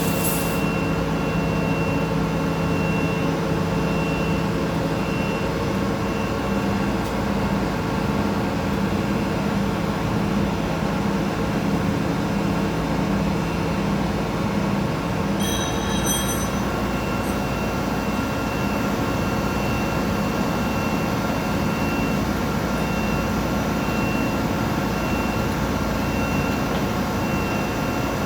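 Industrial machine running steadily with a constant mechanical hum, a faint high tone pulsing about once a second, and a few short high clicks about halfway through.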